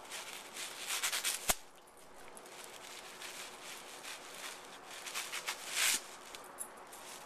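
Brown paper bag crinkling and rustling in uneven bursts as a dog bites and tugs at it, held in a hand. There is one sharp click about a second and a half in.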